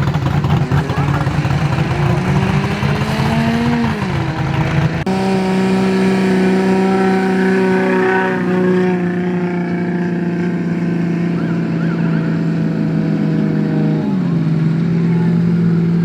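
Off-road race vehicle's engine under load, climbing in pitch for about four seconds and then dropping at a shift. After an abrupt change it runs at a steady high pitch that sags slowly and steps down again near the end.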